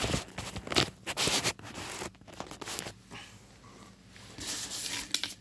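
Irregular rustling and scraping as the phone is handled and moved about close to its microphone. The noise is louder through the first two seconds, quieter in the middle, and picks up again near the end.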